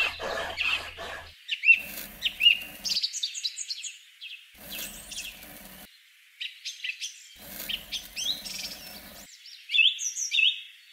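Small songbirds chirping and twittering, many short quick notes that rise and fall. A low background noise cuts in and out abruptly several times behind them.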